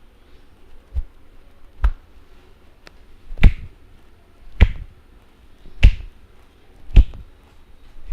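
A masseur's hands striking in a steady rhythm during a head massage: about seven sharp smacks, roughly one every second. The first few are lighter; from about three seconds in they come as four loud, evenly spaced strikes.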